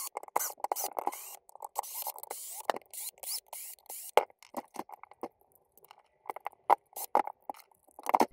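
Handling noise: irregular light clicks, taps and scrapes as a cordless drill with a driver bit and small loose screws are handled against the plastic housing of an impact driver.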